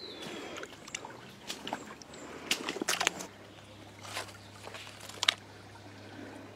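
Stones clicking and knocking together as rocks are picked up and shifted among wet streambed cobbles, the sharpest knock about five seconds in, over a faint trickle of stream water.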